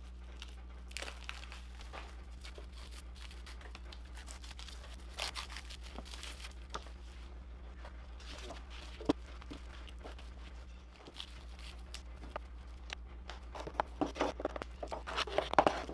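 Plastic stretch wrap being peeled and torn off a freshly glue-laminated wooden canoe stem, crinkling and tearing in irregular spells that are busiest near the end. There is one sharp knock about nine seconds in.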